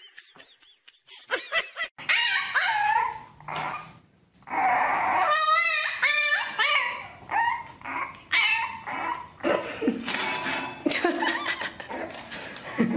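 A puppy whining and yipping: a string of high, wavering cries that break off and start again, beginning about two seconds in, with a quick warbling cry around the middle.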